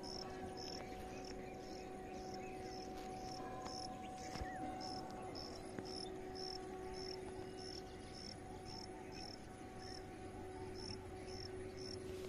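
Insect chirping in an even rhythm, short high chirps about two to three a second, over a faint steady hum.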